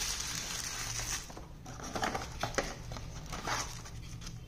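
Camera packaging being handled by hand: a crinkling rustle of a thin plastic wrapper for about the first second, then scattered soft rustles and light taps of paper and cardboard as a quick start guide is lifted from the box.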